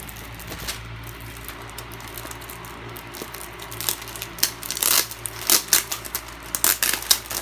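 Clear plastic sleeve crinkling and crackling as hands handle it and work it open, quiet at first, then a quick run of sharp crackles from about halfway through.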